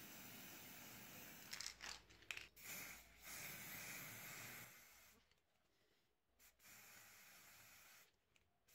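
Aerosol spray-paint can hissing in several bursts with short pauses between them, as paint is sprayed onto a wooden handle.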